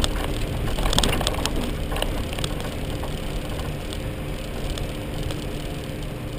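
Four-wheel drive heard from on board, driving along a rough dirt track: a steady engine drone with a faint constant whine, and a few sharp rattles and knocks in the first couple of seconds as it jolts over bumps.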